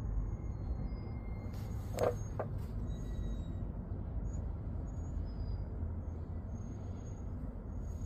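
Steady low background rumble, with two short clicks about two seconds in.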